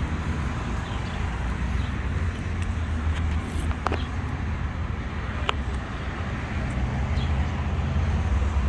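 Steady low outdoor rumble, like traffic or wind on the microphone, with a couple of faint clicks partway through.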